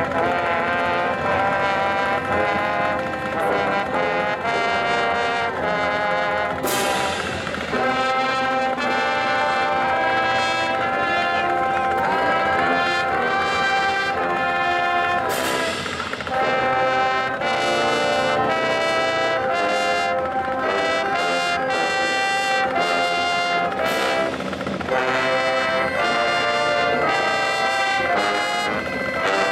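Marching band brass section playing a loud tune, trombones and trumpets prominent, with drums and cymbal crashes now and then.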